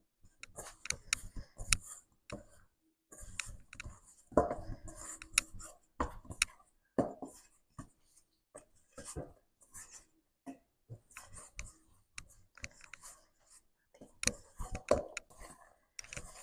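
Hands kneading whole wheat poori dough: irregular soft slaps, squishes and clicks as the dough is pressed and folded.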